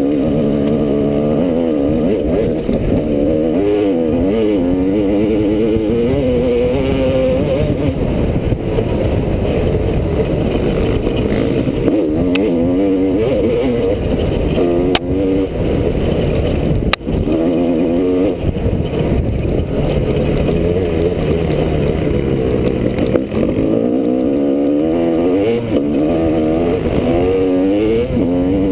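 Honda CR250R's two-stroke single-cylinder engine being ridden hard on a trail, its pitch climbing and falling again and again as the throttle is opened and shut through the gears. A single sharp knock sounds a little past halfway.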